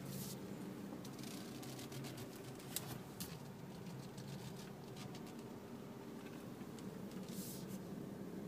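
A faint, steady low machine hum, with light clicks and rustles from the camera being handled.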